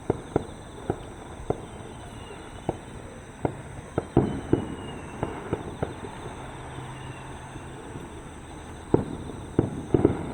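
Aerial fireworks bursting: a string of irregular sharp bangs, clustered about four seconds in and again near the end.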